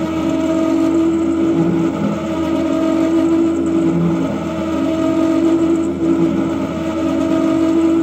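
Ghost Gunner 3S desktop CNC mill's spindle running with a steady whine as its end mill cuts into a steel Glock 19 slide.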